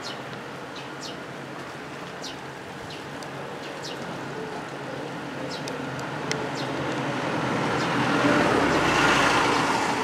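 Steady road-traffic noise, with a vehicle passing close that swells to its loudest about nine seconds in and then eases off. Short high bird chirps come and go above it.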